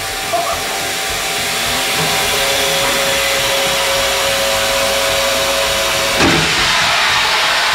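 Snowboard base-grinding machine running with its water on, grinding the scratches out of the board's base: a steady whirring noise with a faint steady whine, and a short knock about six seconds in.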